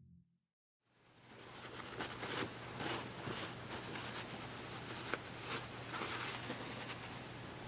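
Soft, irregular scratchy rubbing on a textured painting canvas, several strokes a second, over a steady low hum. It starts about a second in after a brief silence.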